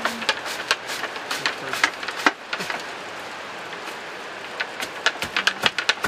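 Dried flax straw crackling and snapping as it is pulled and broken in a wooden flax break, a run of irregular sharp cracks that thins out in the middle and picks up again near the end.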